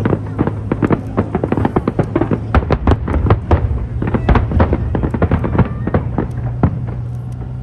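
Fireworks display: shells bursting in quick succession, a dense run of sharp bangs and crackles several times a second.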